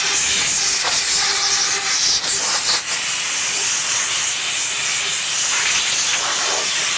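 Compressed-air blow gun hissing steadily as it blows off a freshly machined metal part.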